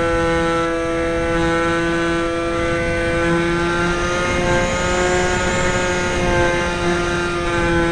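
Aerobird RC plane's small electric motor and propeller whining steadily in flight, picked up close by a camcorder built into the fuselage; the pitch shifts slightly about halfway through.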